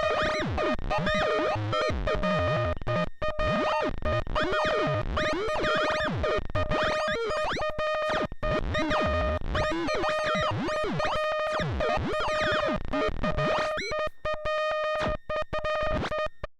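Noisy experimental electronic music: a steady held tone under sweeping, swooping pitch glides and rapid stuttering cuts, stopping abruptly at the end.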